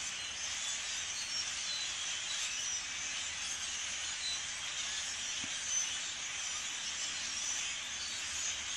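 A large flock of European starlings calling all at once: many short, high notes overlap into a steady, dense chatter with no pauses.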